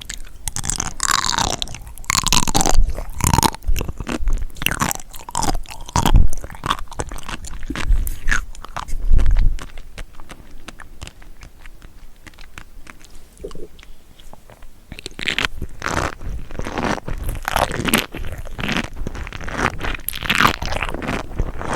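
Close-miked chewing and biting of seafood, crunchy and popping, with many small crackling clicks and a few louder bites. It goes quieter for a few seconds midway, then picks up again with steady crackling chewing.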